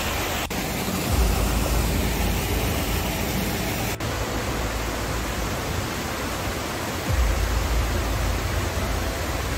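Large waterfall: a steady, dense rush of falling water, with a deeper low rumble that swells twice.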